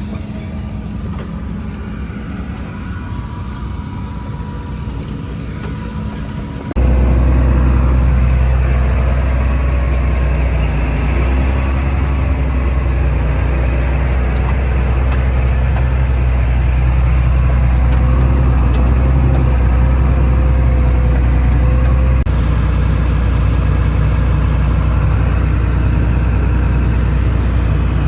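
Heavy farm vehicle engine running steadily with a deep, even drone. It gets louder and lower-pitched at a sudden change about seven seconds in, and shifts again near the end.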